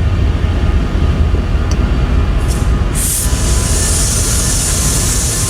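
Norfolk Southern train rolling past close by: a loud, steady low rumble of wheels and cars on the rails, with a high hissing noise joining about three seconds in.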